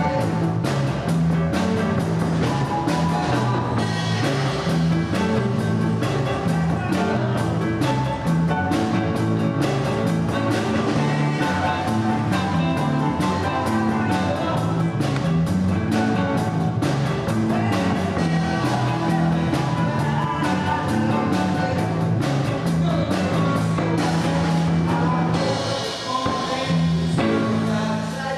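Live band playing: a drum kit keeping a steady beat under electric guitar, low bass notes and keyboard, with a brief drop in the sound near the end.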